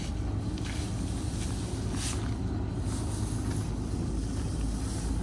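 Combine harvester's diesel engine running with a steady low rumble.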